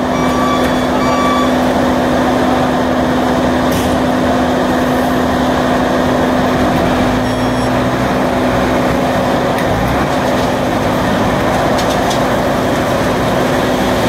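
Diesel engines of an asphalt paver and a dump truck running steadily, with a strong low hum. The truck's reversing beeper sounds twice at the start. From about seven seconds in, the low engine note shifts and rises as the dump truck raises its bed to tip asphalt into the paver.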